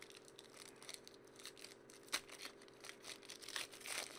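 Hands tearing open and crinkling the foil wrapper of a Panini hockey card pack: quiet, irregular crackling and rustling, with a sharp click about two seconds in and a louder crinkle near the end.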